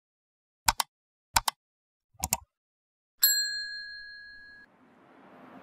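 Three quick double clicks, then one bright, bell-like ding that rings and fades over about a second and a half.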